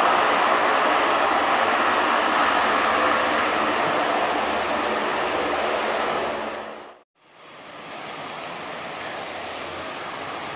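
Antonov An-12BK's four Ivchenko AI-20 turboprop engines running at high power for the take-off, a loud steady drone with a faint high tone in it. About seven seconds in the sound fades to nothing for a moment, then comes back as a quieter, steady rumble.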